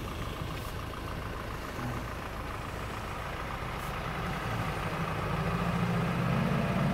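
A vehicle engine idling: a steady low hum that grows louder over the last two seconds.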